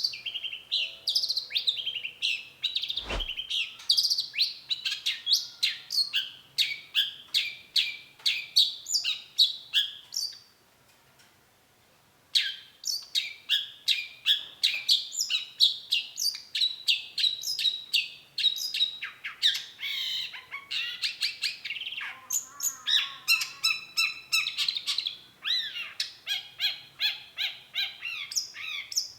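Long-tailed shrike singing a fast, varied stream of chirping and chattering notes, pausing for about two seconds midway before starting again. A single knock sounds about three seconds in.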